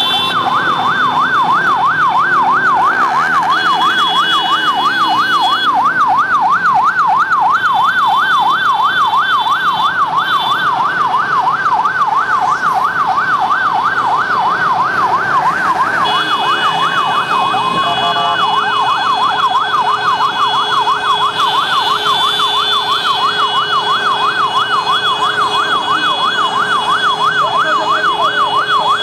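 Electronic siren in a fast yelp, its pitch rising and falling about four times a second with a short break about two-thirds of the way through. Steady high tones come and go above it.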